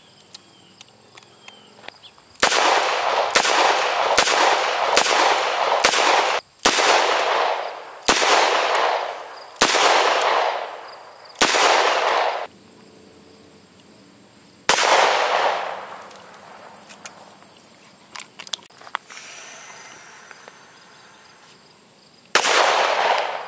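A Smith & Wesson .38 Special revolver fired shot after shot, each shot ringing out with a long echoing tail. A quick run of shots comes first, then single shots more spread out, with a long pause before the last one near the end.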